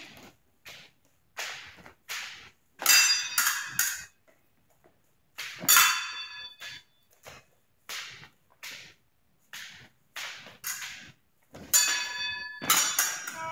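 Épée blades clashing and scraping, several contacts leaving a brief metallic ring, amid irregular stamps of fencing footwork. The loudest clashes come about three seconds in, about six seconds in, and in a quick flurry near the end.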